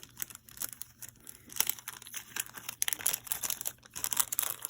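Plastic packaging crinkling and rustling as it is handled, with irregular crackles through the whole stretch.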